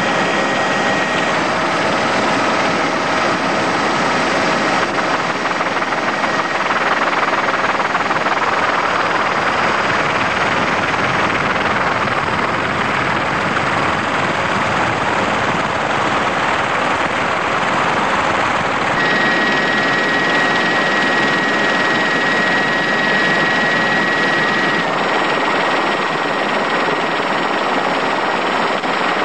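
Helicopter in flight, heard from on board as a loud, steady rush of rotor and engine noise with faint steady tones above it. The sound shifts abruptly about 19 seconds in and again near 25 seconds, where a thin whistle-like tone comes and goes.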